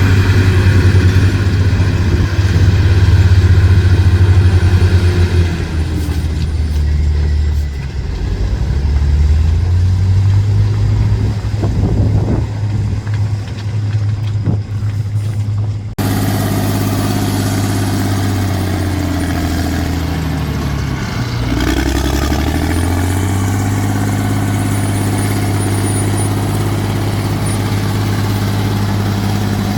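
Heavy diesel engine of earthmoving machinery running steadily. Its revs drop and pick back up twice, and the sound changes abruptly about halfway through.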